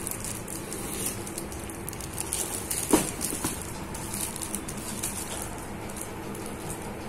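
Handling noise from a plastic-wrapped photo album being moved: scattered crinkling of the plastic film, with one sharp knock about three seconds in.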